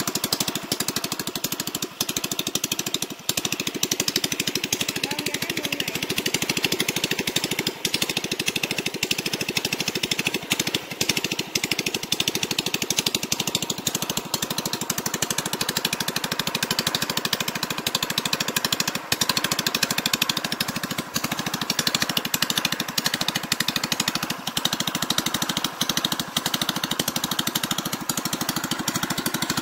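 Small gasoline engine of the kind used on small boats, running steadily with a fast, even chatter of firing strokes as it drives a small pump head that pumps water out of a ditch.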